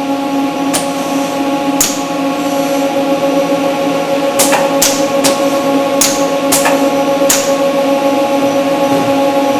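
Industrial arc-welding robot running through the moves of a Rubik's cube solution: a steady machine hum throughout, broken by eight sharp clicks at uneven intervals as the grippers clamp and turn the cube.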